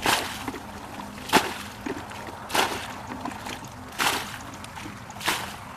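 Muddy water being bailed out of a shallow ditch with a bucket: a splash of thrown water about every second and a half, five times.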